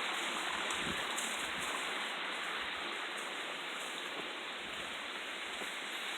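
Steady rush of a small river's running water.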